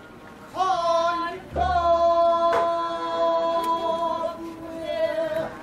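Pansori-style singing voice sliding up into one long held note, with a low drum beat as the held note begins and a sharp click about a second later.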